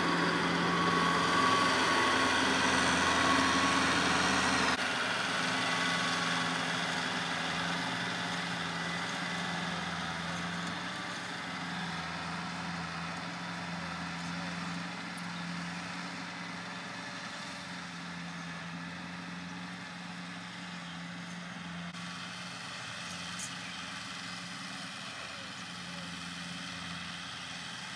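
Farm tractor's diesel engine running steadily under load while pulling a rotary tiller through soil. The sound changes abruptly about five seconds in, then grows gradually fainter.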